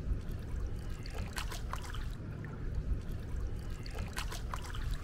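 Water splashing in a swimming pool, with clusters of short splashes about a second and a half in and again near the end, over a steady low rumble.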